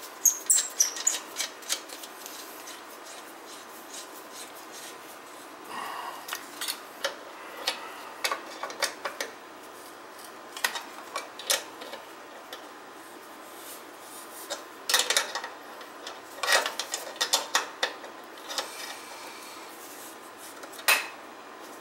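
Irregular metallic clicks, clinks and scraping from hand tools and fittings being worked on a gas conversion burner, coming in short clusters over a steady faint hiss.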